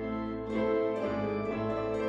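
Piano and organ playing slow instrumental music: long held chords, with new notes struck about every second.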